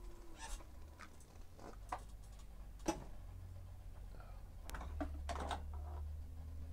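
Faint, irregular clicks and knocks of tools being handled while someone hunts for a pair of wire strippers, over a low steady hum.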